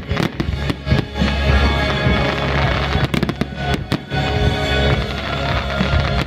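Fireworks shells bursting in quick succession, a sharp series of bangs clustered near the start and again about three seconds in, over music playing.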